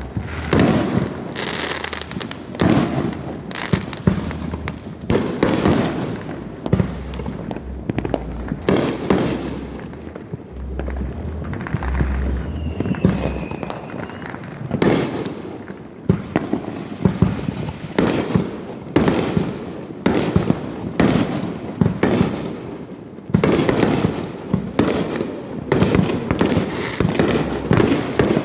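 Fireworks going off without a break, one loud bang after another, often overlapping, with crackling in between. A brief whistle rises and falls about twelve seconds in.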